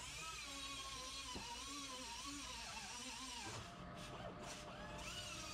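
Air-powered cut-off tool or grinder whining as it cuts into the steel of a VW Beetle chassis. Its pitch wavers up and down as the wheel bites and eases.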